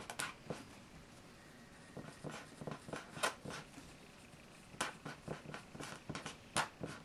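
Felt-tip pens scratching on paper in short, quick, irregular strokes as characters are written by hand.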